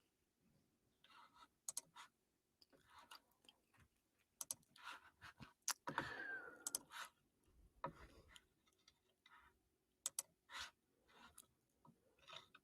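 Near silence: room tone with scattered faint clicks and small rustles.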